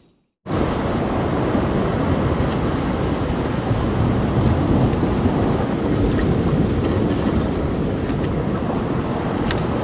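Steady noise of surf washing on a rocky shore with wind on the microphone, starting suddenly about half a second in after a moment of silence.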